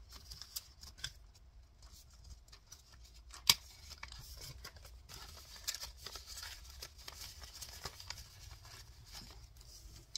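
Paper dollar bills and plastic zippered binder pouches rustling as cash is handled and the pouches are flipped, with scattered light clicks and one sharp click about a third of the way in.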